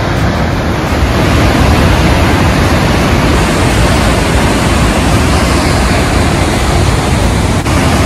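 The Waikato River surging through the narrow rock gorge of Huka Falls: a huge volume of white water making a loud, steady, unbroken rush.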